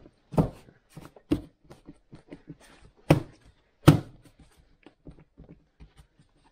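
Plastic engine cover of a Kia 1.6 CRDi diesel being pressed and knocked down onto its mounts: a string of dull thumps and smaller clicks, the loudest two about three and four seconds in.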